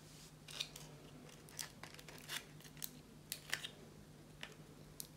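Paper coffee-filter leaves and floral stem tape being handled and wrapped around wire stems: a string of short, faint crackles and rustles. A low steady hum runs underneath.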